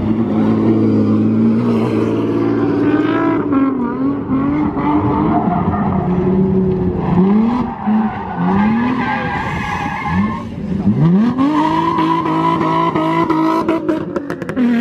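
Nissan 350Z roadster drifting: its V6 engine revs rise and fall again and again, with tires squealing, and the car passes close near the end.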